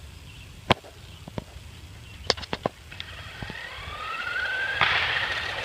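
Remote-control truck's motor whining as it speeds away, rising in pitch and getting louder over the second half, with a rush of noise from the wheels joining in near the end. A few sharp clicks come before it.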